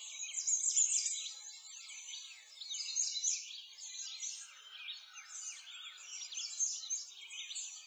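A chorus of songbirds: many quick, overlapping chirps and short twittering phrases, high-pitched and continuous, rising and falling in loudness.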